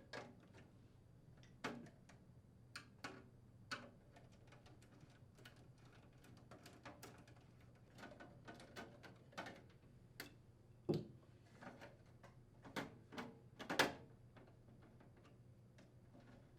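Scattered light clicks and metallic clinks of hand tools unthreading nuts and bolts on the stainless steel panel of a range vent hood, irregular and fairly faint, with a few louder knocks in the second half.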